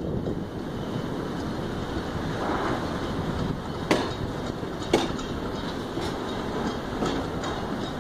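Passenger train running, heard from inside a carriage at the window: a steady rumble of wheels and running noise, with two sharp clacks of the wheels over rail joints about a second apart, midway through.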